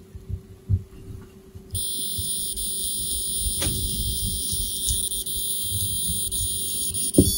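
Edison V2.0 robot's buzzer, silent while its line sensor reads black, then from about two seconds in playing a steady electronic tone, the medium tone that signals an orange surface. Soft handling bumps can be heard at the start and near the end.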